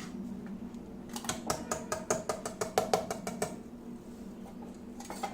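Spoon clinking quickly against the side of a bowl while stirring thin moong dal batter, about five clinks a second for a couple of seconds, over a steady low hum.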